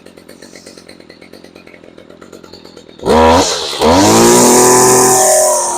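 Stihl FS55 RC string trimmer's two-stroke engine idling with an even quick tick, then revved hard from about three seconds in. The pitch climbs, dips briefly, climbs again and eases off near the end. It has just been restarted after a repair with excess fuel and oil in the system, which the owner blames for its heavy smoke.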